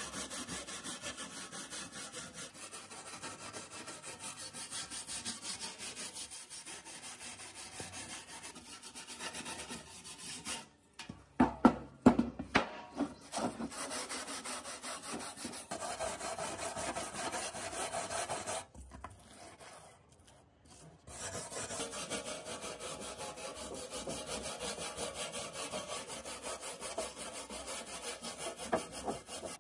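Hand wire brush scrubbing rust off a sheet-steel fog machine housing in fast, rasping back-and-forth strokes. About twelve seconds in there are a few loud knocks, and the scrubbing stops for about two seconds near the two-thirds mark.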